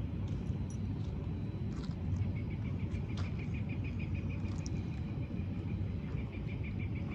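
An insect chirping: a rapid, even run of high chirps that starts about two seconds in, over a steady low rumble.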